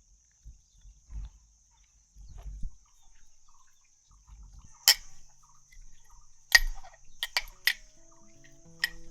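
Steady high-pitched insect chirring, with a few sharp clicks: one about five seconds in and a cluster later on. Soft music tones come in near the end.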